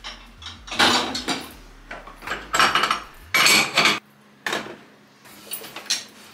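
Dishes and cutlery being handled, clattering and clinking in a string of short bursts, with a few sharper knocks near the end.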